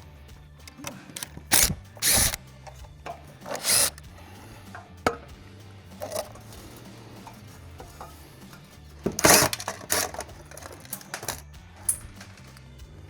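Several short knocks, clunks and scrapes of alarm hardware being handled. The loudest come at about one and a half, two and four seconds in and again about nine seconds in, with lighter clicks between, over quiet background music.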